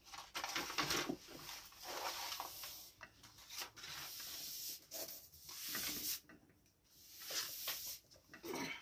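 Hands sliding and rubbing over a diamond painting canvas and its paper cover sheets: several stretches of rustling, rubbing strokes with a short pause about six seconds in.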